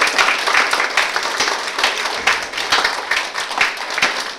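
A roomful of people applauding: dense, steady hand clapping.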